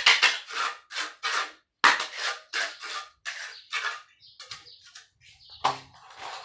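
Wooden screed board scraping across wet cement floor in quick back-and-forth strokes, two to three a second at first, then fewer. A low musical note comes in near the end.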